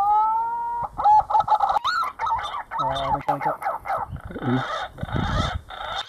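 Green pigeon (punai) calls: a run of wavering, fluty whistles, the first one rising in pitch.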